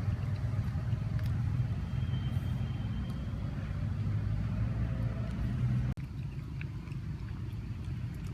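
Steady low rumble of outdoor background noise. It breaks off for an instant about six seconds in, then carries on a little quieter.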